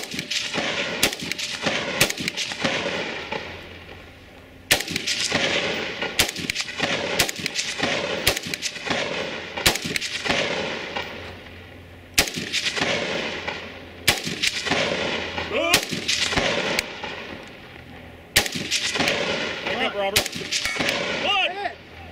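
Rifle shots fired in an uneven string, roughly one every half second to a second, each with a long echoing tail, broken by a few short pauses between groups of shots.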